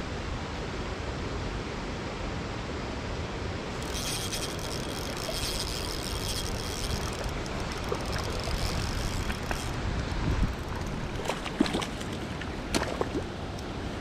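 Steady rush of running water with a brighter hiss in the middle, and a few light clicks near the end.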